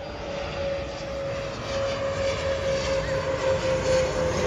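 Jet airliner coming in low to land: engine whine with one steady tone slowly falling in pitch over a rushing noise, growing louder.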